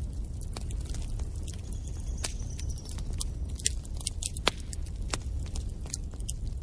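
Wood fire in a fireplace crackling, with irregular sharp pops over a steady low rumble of the flames.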